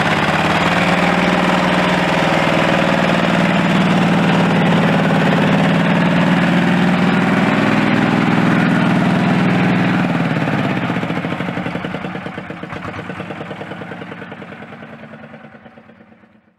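Small engine of a home-built miniature tractor running steadily at a fairly constant speed, then fading away over the last six seconds to silence.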